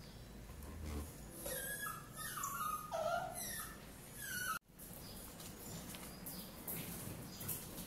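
Miniature pinscher whining in several short, high, rising and falling whines, eager for the food it is waiting for.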